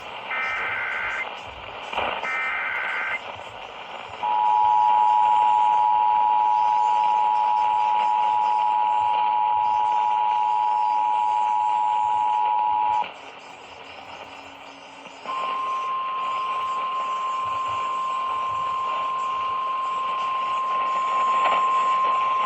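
Emergency Alert System tones over radio hiss: two one-second bursts of the warbling SAME data header, then the two-tone attention signal held steady for about nine seconds. After a two-second gap comes a single steady tone like the weather radio alert tone, which opens a flash flood warning.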